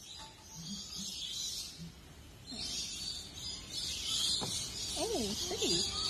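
Palm cockatoo calling with a few gliding, up-and-down whistled notes near the end, over a steady high hiss. A single sharp click comes about four and a half seconds in.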